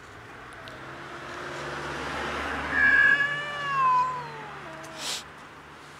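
Large, fluffy grey stray cat giving one long, drawn-out meow that swells and then falls in pitch at the end, loudest about three to four seconds in. A short, breathy burst of noise follows about a second later.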